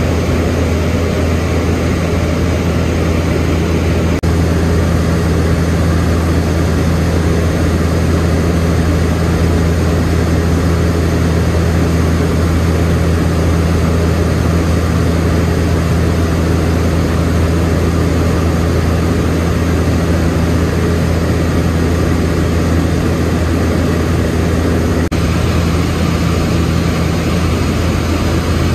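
Steady low drone of a DHC-6 Twin Otter's twin turboprop engines and propellers, heard from inside the cabin in flight.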